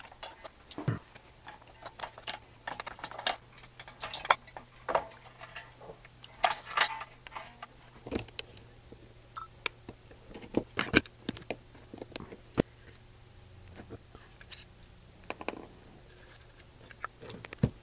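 Metal hand tools, a wrench and a screwdriver, clicking and tapping against the small metal carburetor of a 1952 Johnson Sea Horse outboard as it is unbolted and taken apart: irregular sharp clicks, some in quick clusters.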